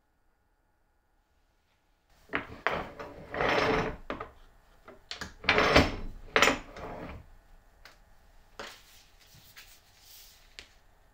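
Wooden bench vise being worked: a run of knocks and sliding, scraping wood-on-wood noises as the jaw is moved and screwed tight on a strip of plastic cutting board, the longest two lasting about half a second each. Fainter rustles of a plastic blister pack follow near the end.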